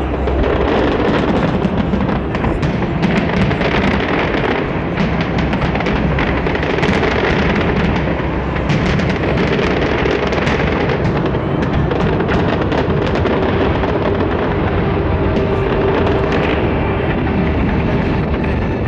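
A fireworks display going off without pause: a dense run of bangs and crackles over a continuous rumble, with music playing along.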